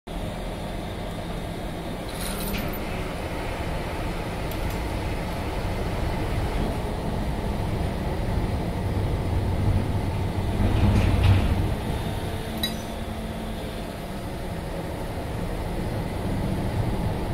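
Steady low rumble of a ferry's engine heard from on board as the boat comes into port, swelling to its loudest about eleven seconds in. A few brief high metallic clinks come through on top.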